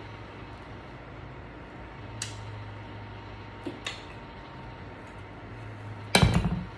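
A few light clicks and clinks of tableware or food handling while eating, then one louder knock or crunch near the end.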